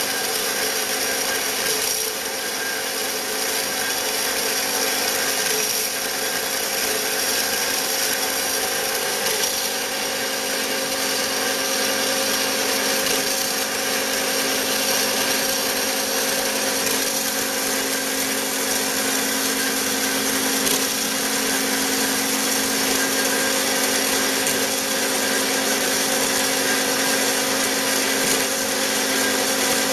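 Bigstone CF450 horizontal metal-cutting bandsaw running steadily, its blade sawing through stock with a constant hum and a dense hiss.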